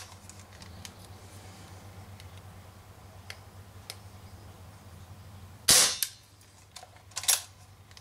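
Umarex Smith & Wesson M29 CO2 air revolver firing two sharp shots about a second and a half apart in the second half, with a few faint clicks from the gun before them.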